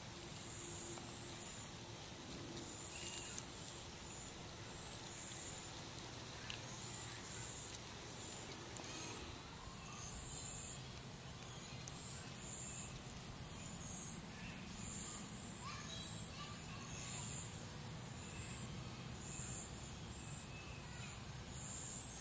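Outdoor ambience dominated by a steady, shrill insect drone, with a few faint short chirps scattered through it.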